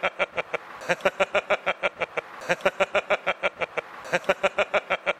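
A man laughing nonstop, a rapid run of ha-ha-ha about six pulses a second, broken every second or so by a short pause for breath.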